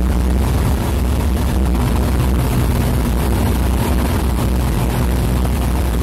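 Aircraft engine droning steadily in flight, with a rush of air over the microphone.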